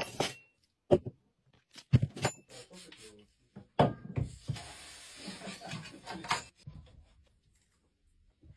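Sharp knocks and clatter of tools and a clothes iron handled on a wooden workbench and guitar neck, about half a dozen in the first four seconds, then a steady hiss for about two seconds.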